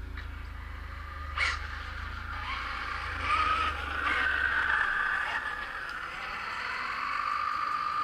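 ZD Racing 08426 1/8 RC drift car's electric motor and drivetrain whining as the car drives off, the pitch wavering up and down with the throttle. A sharp click comes about a second and a half in.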